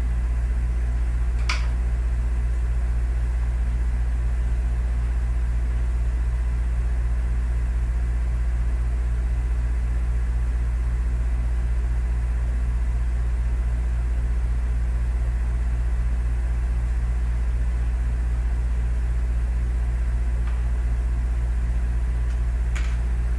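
Steady low hum, loud and unchanging, with a slight rapid pulsing in its lower tones. Two short clicks stand out, one about a second and a half in and one near the end.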